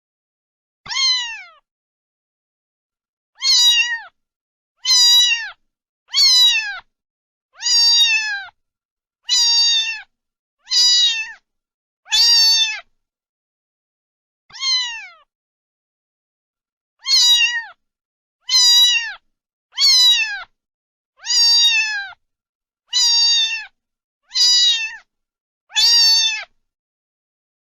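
Domestic cat meowing repeatedly, about sixteen short meows, each falling in pitch at its end, with brief gaps between them and a longer pause about halfway through.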